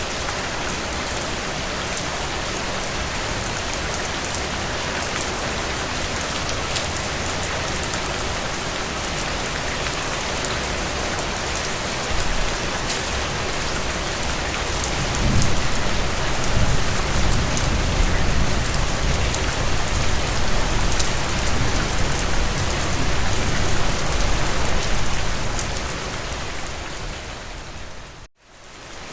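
Heavy rain falling steadily, a dense patter of drops. About halfway through, a low rumble builds under it for around ten seconds; near the end the sound fades out sharply to almost nothing for a moment and then comes back.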